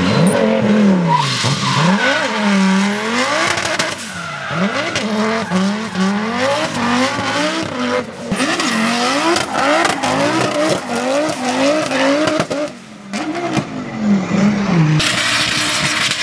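Audi quattro five-cylinder engines revving hard up and down again and again as the cars drift, with tyres squealing and skidding. A loud rush of tyre squeal near the end.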